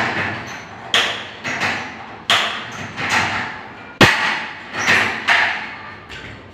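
Sharp metallic clacks on a galvanized steel partition stud as it is worked with a hand tool, about eight over five seconds, each followed by a short ring of the metal. The loudest comes about four seconds in.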